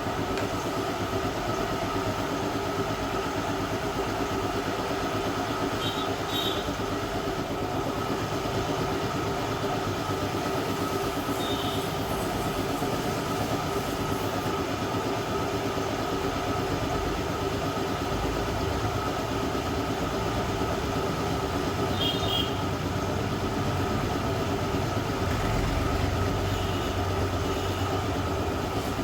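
Hot-air plastic welder running steadily: its compressor pushes air through a heater, making a continuous even mechanical drone with a steady tone. A few faint short high chirps come and go.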